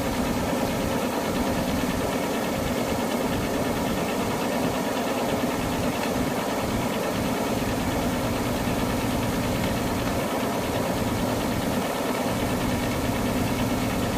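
Combine harvester with a Perkins six-cylinder diesel engine running steadily, unloading grain through its auger into a truck; a continuous, unchanging engine drone.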